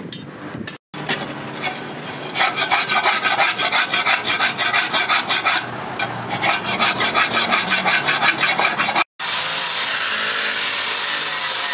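Fast, even rasping strokes of metal rubbed against a rusty steel plate, broken by a short pause. Then a steady hiss over the last few seconds.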